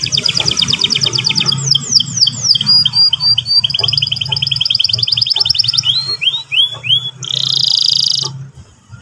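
Canary song: a long, rapid trill of repeated high notes, broken about two seconds in by a few downward-sliding whistles and short notes. The trill resumes, then gives way to a few rising notes and a harsh buzzy note near the end before the song stops.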